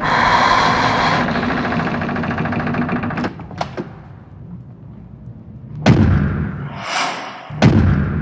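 Cinematic intro sound design: a dense noisy texture that fades out over the first few seconds, a couple of sharp hits, then two deep booming impacts with a swelling whoosh between them.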